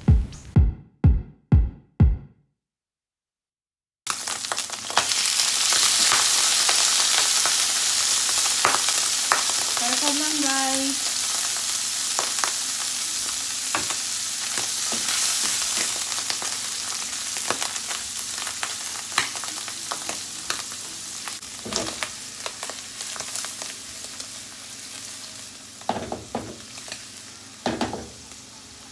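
Sliced button mushrooms frying in butter in a non-stick frying pan over high heat: a steady sizzle that slowly eases, with scattered taps of a wooden spatula stirring against the pan. A few beats of electronic music end about two seconds in, and a short silence comes before the sizzle starts.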